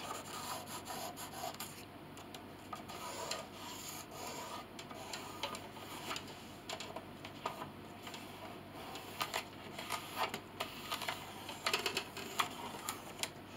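Pencil scratching and rubbing on the wood of a piano pinblock in short, irregular strokes, marking out a profile line.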